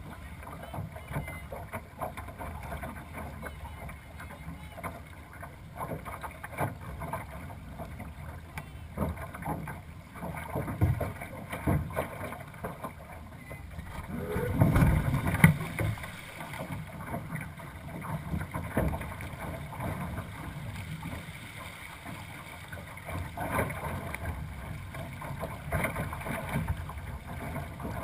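Water rushing and slapping along the hull of a two-person sailing dinghy under way, with wind buffeting the boat-mounted camera's microphone. There is a louder low rumble about halfway through.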